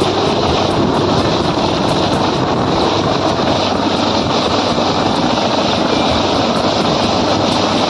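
Helicopter hovering low overhead: loud, steady rotor and turbine noise.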